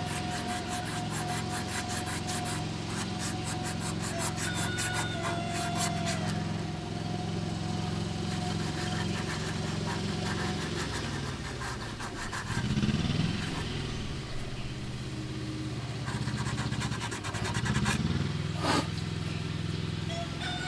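Emery cloth rubbing a steel door hinge pin clean in quick strokes, over a steady low engine hum that swells twice.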